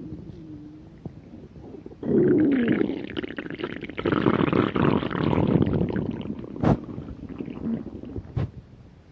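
A human stomach growling from hunger. A soft gurgle gives way, about two seconds in, to a long, loud rumbling growl that starts with a falling pitch and runs on as dense gurgling for several seconds. Two sharp clicks come near the end as it fades.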